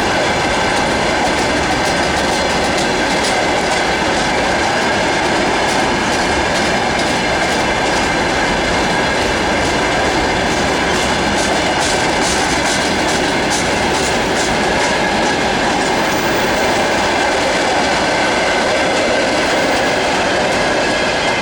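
Freight train rolling past at speed, a steady loud rumble of wagon wheels on the rails, with a run of clicks in the middle as wheels cross rail joints.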